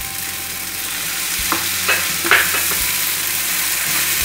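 Onion-tomato masala with freshly added tomato puree sizzling in a hot pan as it is stirred, with three short scrapes of the spatula against the pan around the middle.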